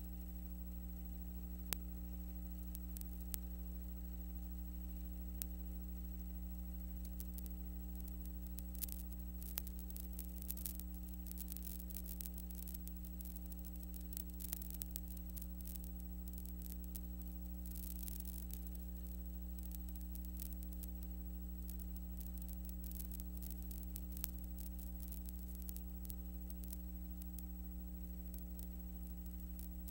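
Steady electrical mains hum with faint scattered clicks and crackle: the noise floor of a transfer of silent film, with no game or crowd sound recorded.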